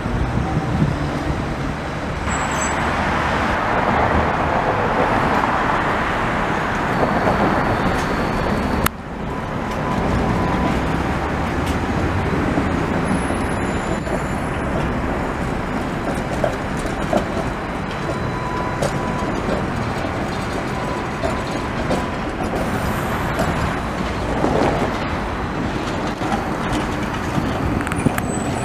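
Trams passing on street rails, the wheels rumbling over the track, mixed with city traffic noise. The cars are Riga's Tatra T3 and Škoda 15T low-floor trams.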